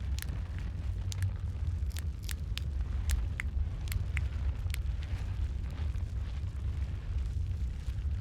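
Wood fire crackling with sharp pops over a steady low rumble of burning; the pops come thick in the first half and thin out after.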